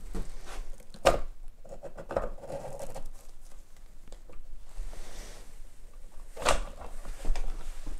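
Handling noises from the gearshift shaft and its selector arm of a 50cc 139FMB pit bike engine being worked out of the split crankcase: a sharp metallic click about a second in, soft scraping and rustling, and another click some five seconds later.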